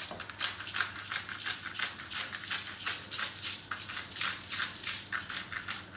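Hand-twisted salt mill grinding salt crystals: a quick, steady run of dry, rasping crunches, several a second, that stops just before the end.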